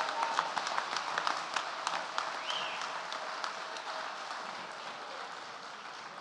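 Audience applauding, a dense patter of many hands clapping that dies down gradually.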